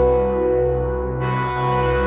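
Sequential Trigon 6 polyphonic analog synthesizer playing its "Drone in C" preset: a steady low drone under a sustained chord. A brighter chord comes in a little past the middle.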